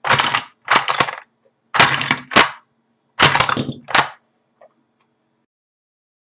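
Plastic toy truck and die-cast toy cars handled by hand, a series of about six short, loud rustling and clattering noises of plastic against plastic and cloth, followed by a faint click.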